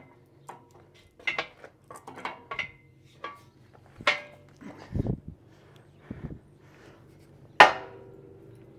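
Scattered metal clanks and knocks of heavy steel tools, a pipe wrench and cheater bar, against the steel grapple frame, about half a dozen in all. The loudest comes near the end and rings briefly.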